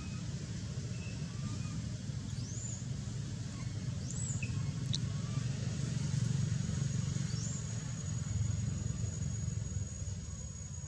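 Steady low rumble, rising a little in the middle, with a few short high squeaks that rise and fall, and a thin steady high whine starting about two thirds of the way in.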